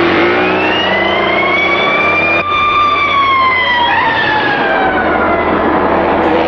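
Police car siren wailing: one long wail that rises in pitch for about two seconds, then slowly falls.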